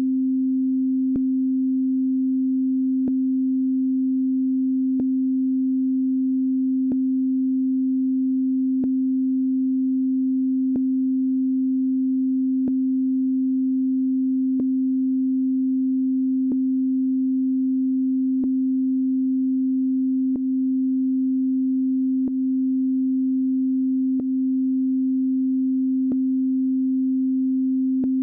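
A steady sine tone from Ableton Live's Operator synthesizer, with a sharp pop about every two seconds, some fifteen pops in all. The pops are an unwanted glitch in the synth's output that the user wants to fix.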